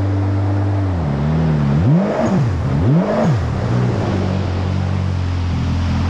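Yamaha GP1800R SVHO jet ski's supercharged engine running under way. It eases off about a second in, is blipped twice in quick succession so the revs rise and fall, then settles back to a steady pull. Its intercooler piping has partly popped off, so it is down on revs and not sounding right.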